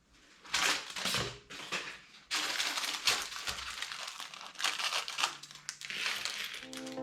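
Crinkling and rustling of LEGO packaging being handled and opened: plastic parts bags and the box, in irregular bursts that become nearly continuous about a third of the way in. Music with steady notes comes in just at the end.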